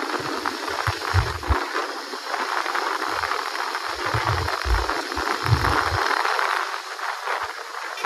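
Wind rushing over the camera microphone on a moving motorcycle, a steady hiss broken by irregular low buffeting gusts.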